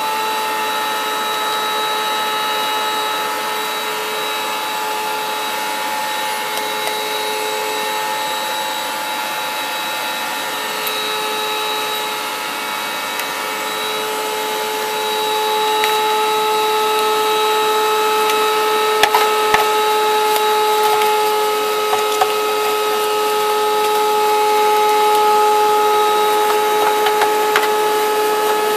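Vacuum cleaner running steadily with a constant motor whine, sucking dust out of an old CRT television's chassis while a brush scrubs over the circuit board and plastic, adding scratching and a few sharp clicks. The whine grows a little louder about halfway through.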